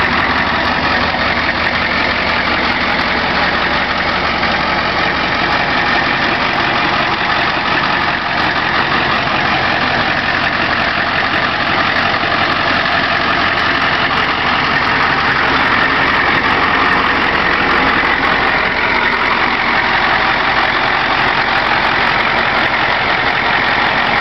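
Converted ambulance truck's engine idling steadily, an even noise that holds without change.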